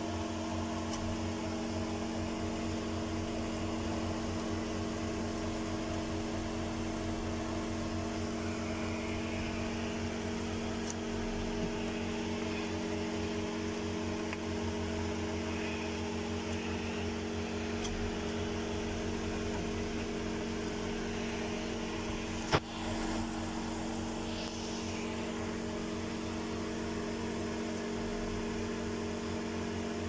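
Steady machine hum with a constant low pitch, and a single sharp click about two-thirds of the way through.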